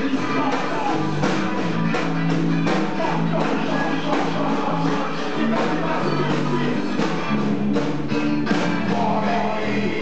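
Live rock band playing a song with a steady beat, a voice singing over it.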